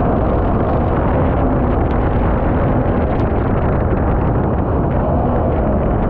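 Mini jet boat's Yamaha MR-1 1.1-litre four-stroke engine running steadily at speed, largely buried under a loud, steady rush of water and wind noise.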